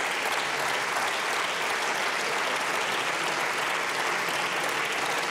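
Many people applauding steadily, a dense sustained clapping that holds at an even level without letting up.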